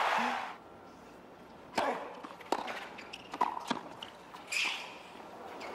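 Crowd applause dying away, then a tennis rally on a hard court: a series of sharp racket-on-ball hits and ball bounces, several in quick succession, over a quiet crowd.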